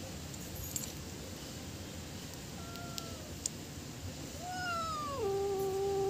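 Domestic cat meowing: a short, faint meow about two and a half seconds in, then a longer, louder meow about four and a half seconds in that drops in pitch partway through and is held low to its end.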